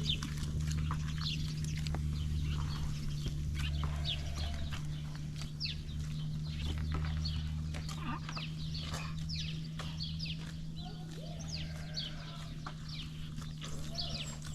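Village farmyard sounds: many small birds chirping and chickens clucking over a steady low hum.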